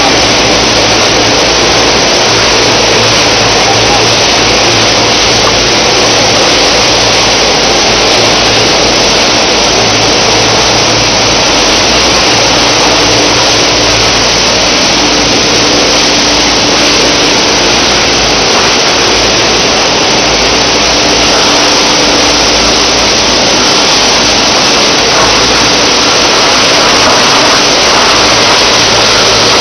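PET bottle recycling line running: loud, steady machine noise from the conveyors and processing units, with a faint low hum that comes and goes.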